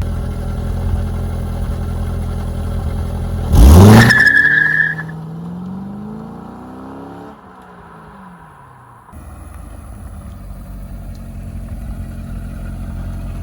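C5 Corvette's V8 idling, then revved hard about three and a half seconds in, with a brief tire squeal: a short, timid first burnout attempt that needed more throttle. The engine note then falls away over the next few seconds, followed by steady engine and road noise.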